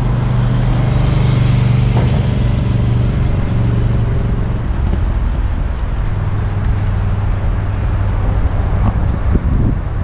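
Road traffic: a motor vehicle's engine humming steadily close by, its pitch dropping slightly about five seconds in, over a steady rush of traffic noise.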